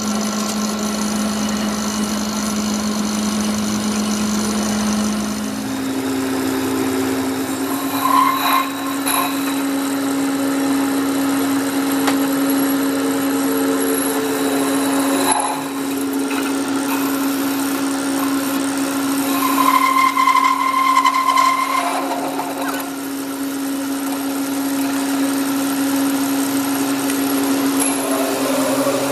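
Metal lathe running with a steady hum that steps up in pitch about six seconds in and then holds, with a few short squeals from the cutting on the axle steel.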